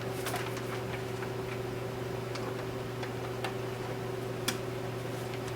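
A few scattered light clicks and knocks from a printer's power cord being handled and plugged in, the sharpest near the end, over a steady low hum.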